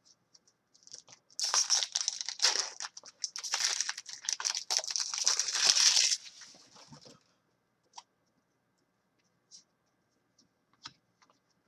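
Foil wrapper of a 15-16 SPX hockey card pack being torn open and crinkled, starting about a second in and lasting about five seconds. A few faint ticks follow.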